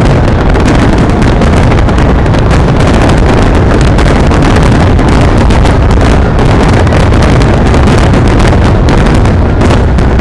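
Fireworks going off in a dense, continuous barrage: rapid bangs and crackles that run together into one steady, very loud din, overloading the microphone.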